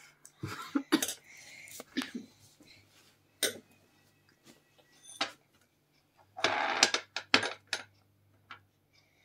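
Scattered light taps, clicks and knocks of children handling paper, wool and a small glass bowl at a glass-topped table, with a short rustling stretch a little past the middle, over a faint steady hum.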